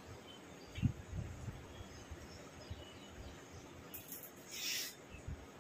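Faint short bird chirps in the background, with soft low thumps of rice being mixed and eaten by hand from a plate, and a short hiss about four seconds in.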